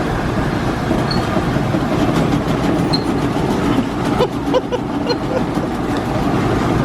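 Overloaded industrial-size washing machines wobbling and banging loudly, a dense, continuous clattering rumble: the machines are stuffed too full of clothes and thrown off balance.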